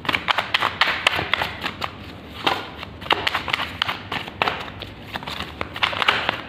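A deck of tarot cards being shuffled by hand: quick runs of crisp card flicks and slaps, coming in several spurts with short pauses between them.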